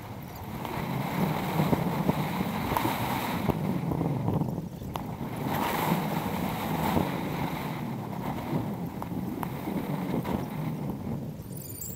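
Wind noise and road rumble on a helmet-mounted GoPro's microphone while riding a road bike, a steady rushing noise with small rattles and clicks.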